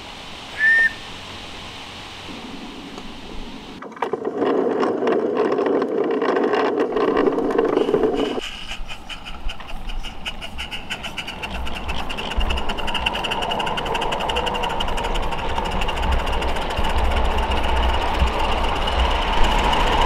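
Small live-steam garden-railway locomotive running with its train: rapid rhythmic chuffing and clatter of wheels on the track, changing abruptly at cuts between camera positions. A short high peep sounds about a second in.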